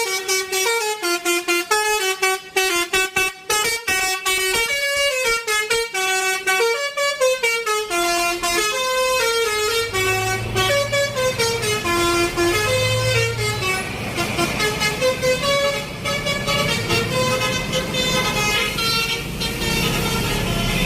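Multi-note telolet horn playing a quick tune of stepped notes. About eight seconds in, the low rumble of a heavy vehicle's engine joins underneath while the horn tune carries on.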